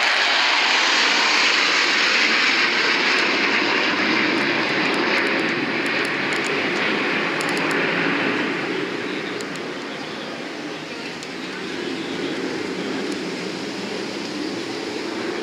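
F-16 fighter jets' engine roar during a flypast: loud for the first half, then fading away to a lower rumble.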